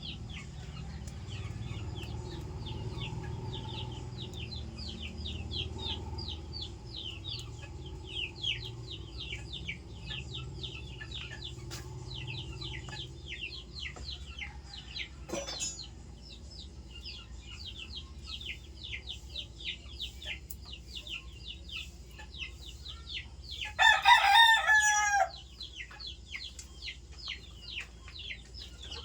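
Chickens: a constant stream of short, high, falling peeps, and a rooster crowing once, loudly, about three-quarters of the way through.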